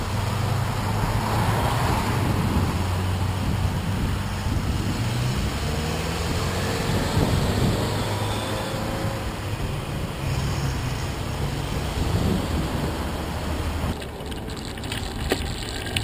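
Wind rushing over the microphone of a handlebar-mounted camera on a moving bike in street traffic, with a steady low rumble. About fourteen seconds in the rumble drops away and a few sharp rattling clicks come through as the bike slows.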